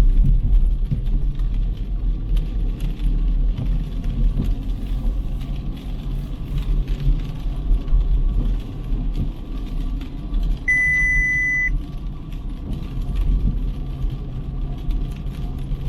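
City street traffic rumbling steadily, with a single electronic beep lasting about a second a little past the middle.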